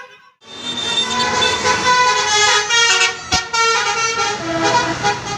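Indonesian 'telolet'-style musical vehicle horn playing a tune. Several tones sound together and change pitch in steps. It starts about half a second in and is loud throughout.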